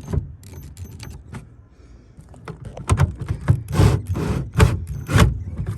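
Socket ratchet tightening tail light mounting bolts: light clicks and rattles at first, then a run of about six strong ratcheting strokes roughly half a second apart in the second half.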